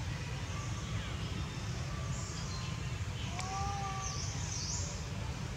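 Outdoor tree-canopy background: a low steady rumble, a faint click and a short, slightly rising animal call about three and a half seconds in, followed by quick high bird-like chirps.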